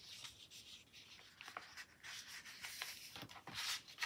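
Faint rustling and rubbing of paper as the pages of a sticker book are turned and handled, with a few light taps. The rustle grows a little stronger in the second half.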